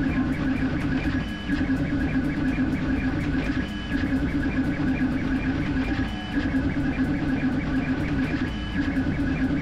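Creality K1C CoreXY 3D printer running a high-speed print: stepper motors whine and change pitch as the print head darts and reverses, over the steady hum of its fans. The pattern of tones repeats about every two and a half seconds.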